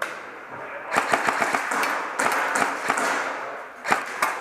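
Airsoft gunfire: a flurry of sharp, irregular snapping shots and BB hits that starts about a second in, with a couple more loud cracks near the end.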